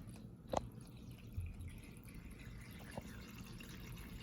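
Water draining through the connector between two soda bottles as a swirled water tornado forms, heard faintly, with two drip-like plops: a clear one about half a second in and a softer one about three seconds in.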